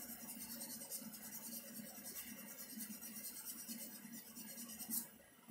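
Faint, rhythmic scraping and rubbing from hand work at a car's front steering knuckle, a few strokes a second, with one sharper knock about five seconds in.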